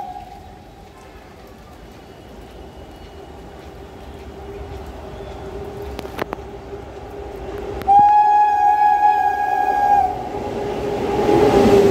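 Indian Railways electric locomotive hauling an express train, approaching at speed. About eight seconds in its horn sounds one steady blast of about two seconds. The rumble of the oncoming train then grows louder as it nears.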